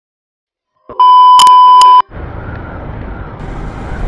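A loud electronic beep held at one steady pitch for about a second, then the rumble of a motorcycle riding along a road, engine and wind noise picked up by the rider's camera.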